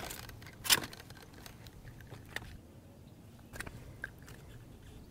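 Scattered light knocks and scrapes of a hooked crappie being swung aboard a small fishing boat and grabbed, with the sharpest knock about a second in and a few smaller clicks after it.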